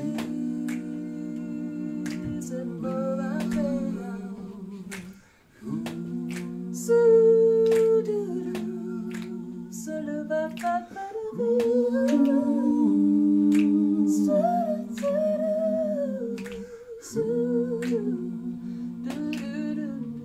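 A woman and two men humming a wordless a cappella passage in close harmony, holding chords that change every few seconds with short breaks, over finger snaps keeping the beat about every three-quarters of a second.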